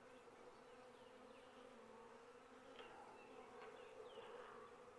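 Faint, steady hum of a honeybee colony buzzing around opened hive frames.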